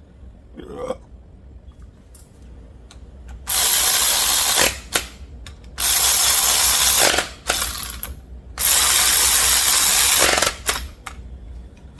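Ratchet wrench ratcheting rapidly in three bursts of a second or two each, running bolts down while a pressure washer pump is put back together.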